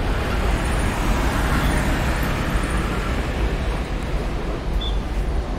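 Narrow-body twin-jet airliner's engines at takeoff thrust, a steady broad rumble as it lifts off and climbs away.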